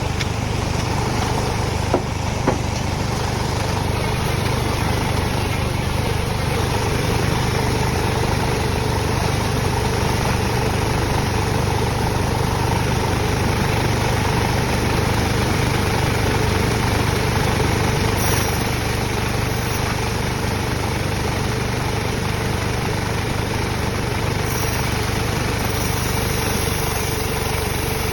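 Small engine running steadily at an even speed, with two sharp clicks about two seconds in.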